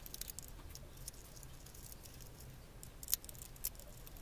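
Light scattered ticks and scrapes of a bare copper wire being handled and pressed against the screw terminals of a plastic switchboard.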